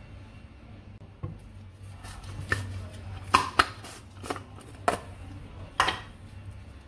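Sharp plastic clicks and knocks from a small electric grinder jar being lifted off its base and its blade assembly twisted off, about seven separate snaps over several seconds.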